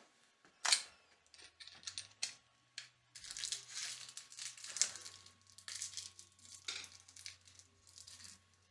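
Hands working at a wall switch box, making handling noises: a sharp click a little under a second in, then a run of scratchy scraping and rustling with small clicks.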